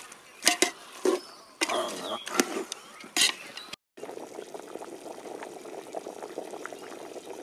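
A metal ladle scraping and clanking against an aluminium cooking pot as pieces of country chicken are stirred, with about five sharp clanks. After a sudden cut, a steady bed of faint crackling from a pot on a wood fire.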